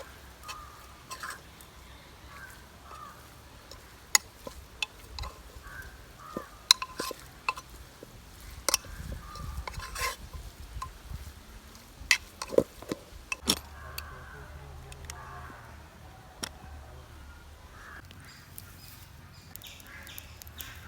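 A metal spoon stirring spiced raw beef in a pressure cooker pot to mix in the masala and oil, with irregular sharp clinks and scrapes against the pot, busiest in the middle of the stretch.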